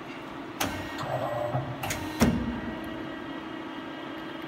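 Hyundai KIA SKT 21 LMS CNC lathe: three sharp clunks, the last the loudest, with a short mechanical whir between the first two, over the machine's steady hum.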